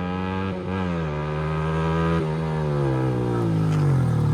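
Yamaha R15 V4's 155 cc single-cylinder engine, running through a loud aftermarket exhaust with its dB killer fitted, as the bike rides by. The note grows louder, dips briefly in pitch about half a second and two seconds in, then slides down in pitch as it comes past.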